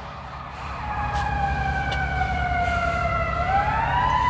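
Fire engine siren wailing as the apparatus approaches, growing louder. Its pitch falls slowly, swings back up about three and a half seconds in, then begins to fall again.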